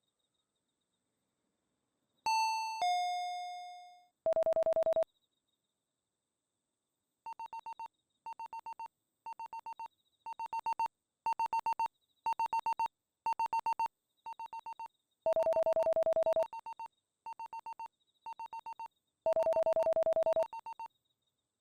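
A two-note electronic doorbell chime, a high note falling to a lower one, about two seconds in. A short steady electronic buzz follows. Then comes a long run of short synthesized beeps, about one a second, broken twice by longer, lower tones.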